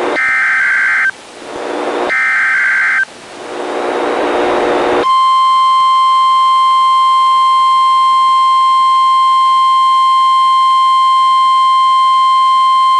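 NOAA Weather Radio SAME data header bursts, harsh digital warbling about a second long each, heard twice about two seconds apart with radio hiss between them, encoding a required weekly test. About five seconds in, the station's steady 1050 Hz warning alarm tone begins.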